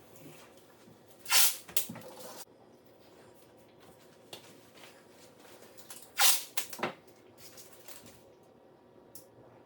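Tape pulled off the roll in two short rips about five seconds apart, each followed by a few small clicks and taps as it is laid down along the countertop joint before caulking.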